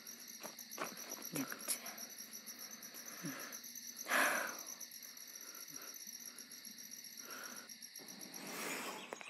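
Crickets chirping in a steady, high, pulsing trill, with a short breathy rush about four seconds in and a few faint low sounds.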